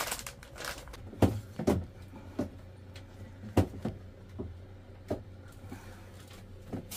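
Plastic bag rustling and a handful of sharp knocks as a bag of dry composting medium is shaken out into a composting toilet, the loudest knocks about a second in and again a little past the middle.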